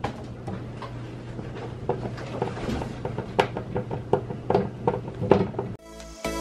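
Irregular clicks and knocks of a metal wire rack being fitted inside a wooden kitchen base cabinet by hand, over a low steady hum. Music with a clear melody starts near the end.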